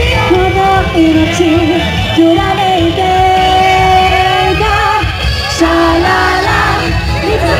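Live rock band playing loud, a lead melody moving in phrases with one long held note over bass guitar and drums.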